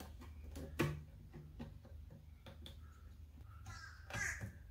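Faint clicks and light scratches of a utility knife's blade nicking and trimming wood around screw holes, with one sharper click about a second in.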